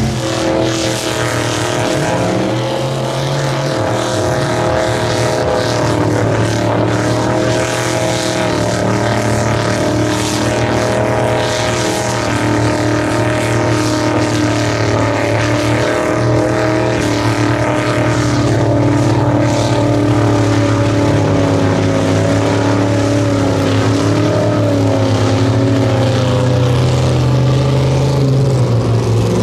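Mud trucks' engines running hard at high revs, pitch rising and falling with the throttle, as they plow through a mud hole with their tires throwing up mud and water.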